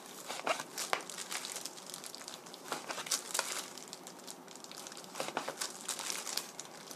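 A kitchen knife slicing raw pork neck into thin strips on a plastic cutting board: irregular knife strokes through the meat and onto the board, mixed with the crinkle of a disposable plastic glove handling the meat.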